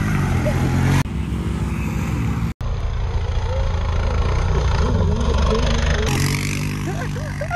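ATV engines running as the quads ride through snow. The sound changes abruptly three times.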